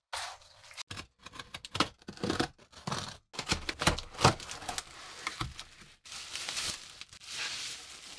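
Cardboard shipping box being torn open by hand: irregular ripping, scraping and snapping of the flaps. From about six seconds in, plastic bubble wrap rustles and crinkles as it is pulled off.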